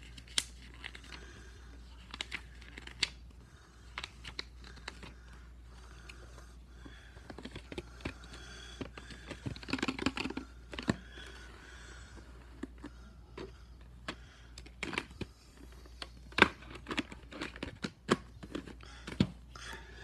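Paper and plastic being handled: a VHS tape's paper insert rustling and a clear plastic clamshell case clicking and tapping. The rustle is densest about ten seconds in, and the sharpest click comes about sixteen seconds in.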